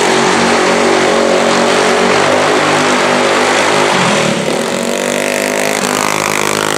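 Racing lawn tractor's engine running hard at high revs, a fast-sounding open-class mower. About four seconds in, the tone shifts and the pitch climbs a little as the mower comes close.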